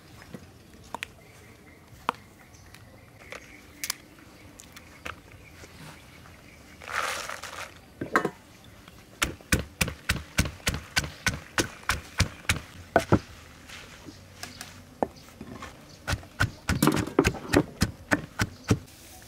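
Wooden pestle pounding fresh chilies and garlic in a wooden mortar: a steady run of dull knocks, about three a second, through the second half. Before it, a few scattered clicks as chilies are dropped into the mortar, and a short rustling pour about seven seconds in.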